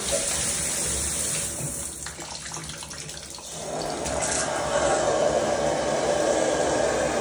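Water running steadily from a brass tub spout into a bathtub. The flow sound drops for a moment about two seconds in, then comes back up and holds steady. The water is coming out of the spout because the valve's diverter button has popped back out when the water was turned on, instead of staying in to send the flow up to the shower.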